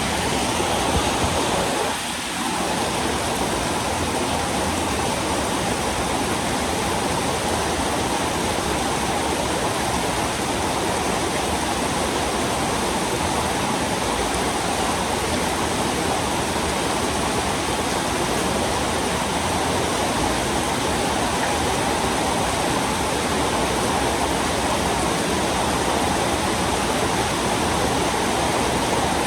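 Heavy rain falling steadily: a dense, even hiss of water.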